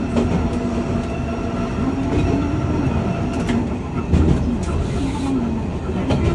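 Hankai Tramway streetcar running along the track: a steady low rumble of wheels and motors, with a few knocks from the rails about halfway through.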